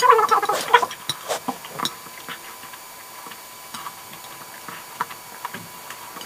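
Close-up eating sounds of spicy instant noodles: scattered small wet mouth clicks and chewing ticks as noodles are slurped in with chopsticks. A short vocal sound with the mouth open comes in the first second.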